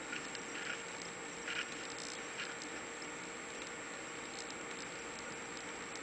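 A few faint, short clicks in the first half, over a steady background hiss with a faint high whine.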